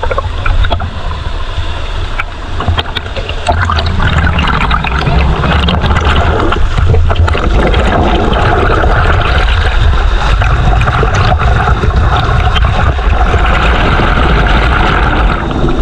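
Spring-fed stream rushing and splashing over rocks in a small cascade, heard from just above the water surface. It gets louder about four seconds in and stays steady.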